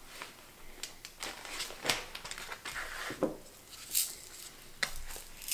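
Scattered light taps, clicks and rustles of cookie decorating: small gingerbread cookies and sprinkles handled on ceramic plates and a plastic piping bag crinkling.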